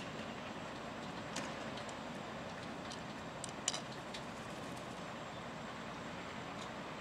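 Steady outdoor background rumble of distant traffic, with a few short sharp clicks, the loudest about three and a half seconds in.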